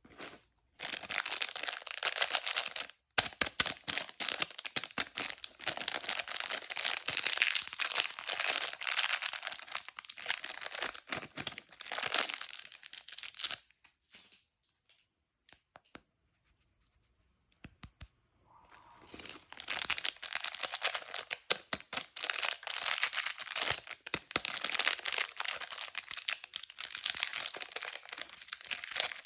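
Plastic candy packaging crinkling and being torn open, in two long stretches of dense rustling with a pause of a few seconds around the middle.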